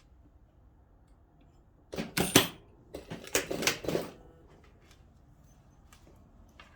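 Two short bursts of rattling clicks, about two seconds in and again about a second later, from hands working on a dress and its zip at the sewing machine.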